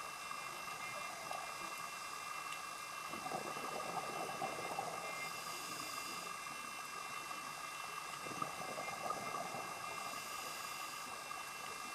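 Underwater hiss with faint steady tones, picked up by a camera in its housing. A scuba diver's exhaled bubbles from the regulator come through twice, about three seconds in and again around eight seconds.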